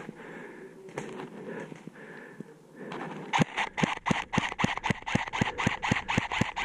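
Electric airsoft Glock pistol (Cyma CM030) firing a rapid, evenly spaced string of about fifteen shots, some five a second, starting about three seconds in.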